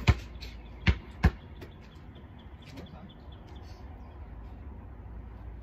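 A basketball being dribbled: three sharp bounces in the first second and a half, the last two in quick succession, then the bouncing stops and only faint background remains.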